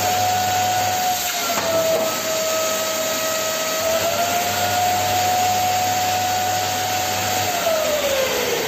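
Cheap industrial construction-cleanup vacuum cleaner running with a steady, loud motor whine while its suction holds up a half-full water bottle. The pitch shifts slightly a couple of times. Near the end the motor is switched off and the whine glides down as it spins down.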